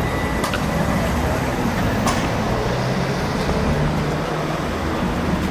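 Street traffic, with a large vehicle's engine running close by and two short clicks, about half a second and two seconds in.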